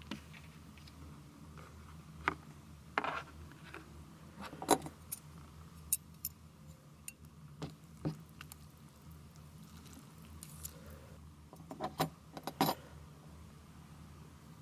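Irregular light clicks and clinks, like utensils and dishes being handled, scattered through the stretch with a quick cluster near the end, over a steady low hum.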